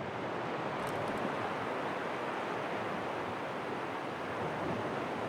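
Sound-effect ambience of surf washing on a shore, a steady rushing noise that has just faded in.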